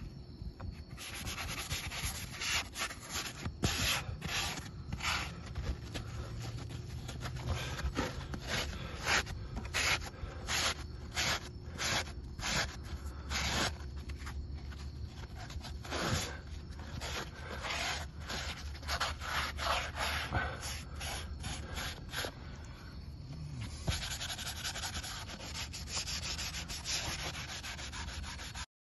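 Sanding by hand inside a transducer hole in a fibreglass boat hull: repeated rubbing strokes, about two a second, turning quicker and continuous near the end, then cutting off suddenly.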